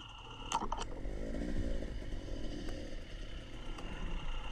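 Dirt bike engine running at low speed on a rough trail, its revs rising and falling about a second in, with a couple of sharp clacks just before.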